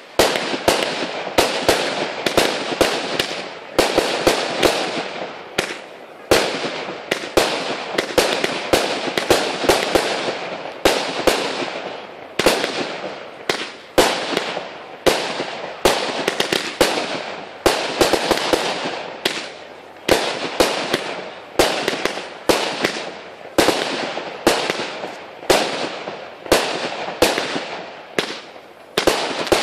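Fireworks display: aerial shots fired one after another, bursting in the air as sharp bangs about once or twice a second, each bang trailing off before the next.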